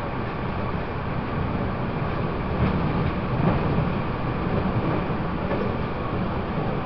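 Taiwan Railways EMU800 electric multiple unit running, heard from inside the carriage: a steady rumble of wheels on rail and running gear, swelling slightly midway.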